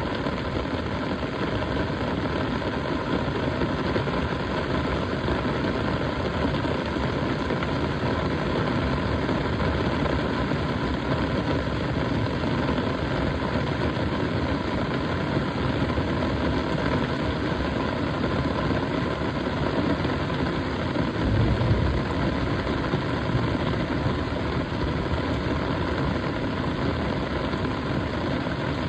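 Quadcopter drone's propellers humming steadily, a mechanical drone with a few fixed tones over a broad hiss. A brief low rumble comes about three-quarters of the way through.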